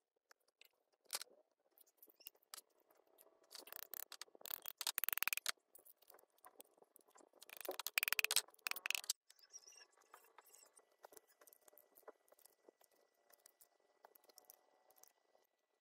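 Hand-tool work on metal: scattered clicks and light scraping, with two louder rasping stretches of rapid strokes about four and eight seconds in.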